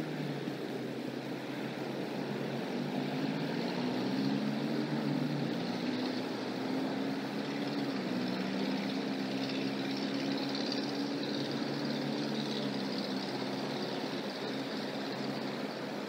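A distant engine humming steadily, its pitch drifting slowly up and down, over a steady background hiss.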